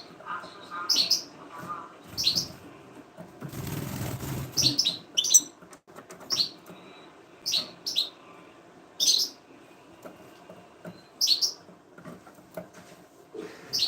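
Pet birds giving short, sharp, high chirps every second or two, with a burst of wing flapping about three and a half seconds in.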